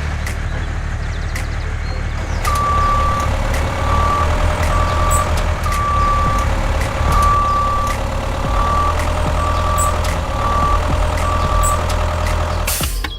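A vehicle's engine running steadily while a reversing beeper sounds a single high beep, on and off in pulses of uneven length. The beeping starts a couple of seconds in and stops about a second before the end, and a steady lower motor whine runs under it.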